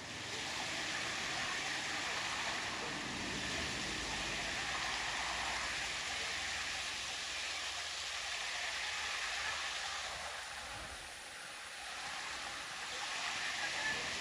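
Small rocky mountain stream running over boulders: a steady rushing hiss of flowing water.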